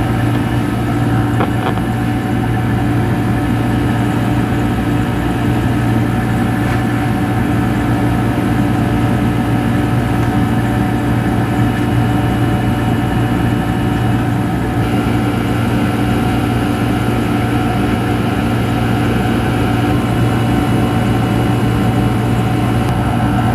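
Marinaire marine air conditioner running steadily, its compressor and blower giving a loud, even hum, just after a small refrigerant top-up for a leak.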